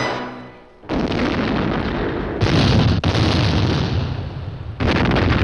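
Music fades out, then about a second in a dense rumble of heavy naval gunfire and shell explosions begins: salvoes from the battleship Schleswig-Holstein's guns. It swells louder with sudden onsets twice, near halfway and again near the end.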